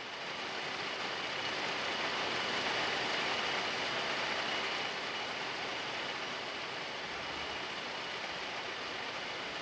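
A steady, even noisy drone with a faint high tone running through it, swelling slightly a few seconds in and then easing a little.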